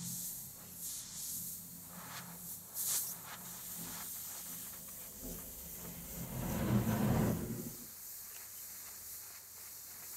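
Gas brazing torch flame hissing steadily while it heats a carbide ball set into a steel hammer face for brazing. A few seconds past the middle the hiss swells into a louder, deeper rush for about a second and a half, then settles back.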